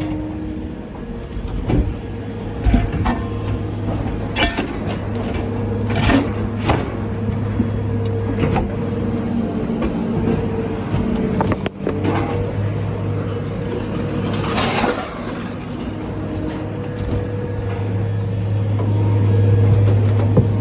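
An engine running steadily, with scattered clanks and bangs of scrap metal being handled, about eight of them spread through the first fifteen seconds.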